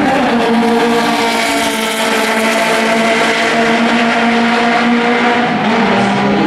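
Open sports-prototype racing car's engine at high revs as the car passes at speed, a loud, steady engine note that drops slightly in pitch near the end.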